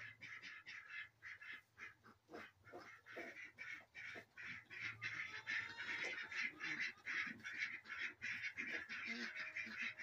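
Ducks quacking in quick, overlapping calls, growing louder about halfway through.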